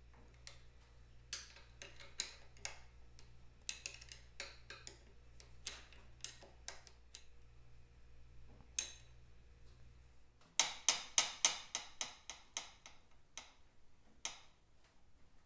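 Hand tools working the metal fittings of a 1951 Vincent Rapide's front end: scattered sharp clicks and clinks, then a quick run of even clicks about two-thirds through. A faint low hum underneath stops at the same moment.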